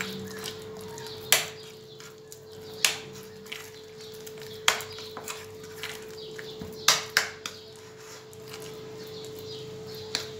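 Sharp knocks against a small ceramic bowl as a thick flour-and-boiling-water dough is worked in it by hand, about six knocks spread out with two close together near the middle. A steady hum runs underneath.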